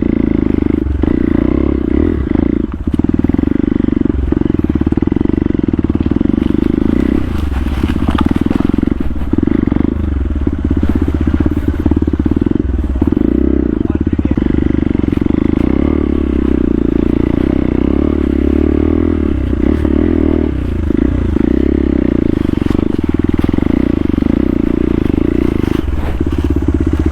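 Motorcycle engine running steadily, with a few brief clatters and scrapes over it.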